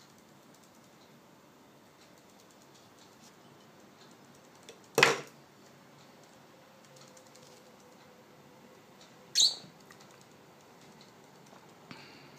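A budgerigar's claws tick faintly on a hard tabletop. About five seconds in, a small bottle is knocked over and clatters loudly onto the table. A second sharp sound follows near the nine-second mark.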